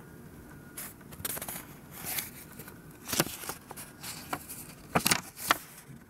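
Paper installation leaflet being handled and unfolded: irregular rustles and crackles of folded paper, with a few sharper ones in the second half.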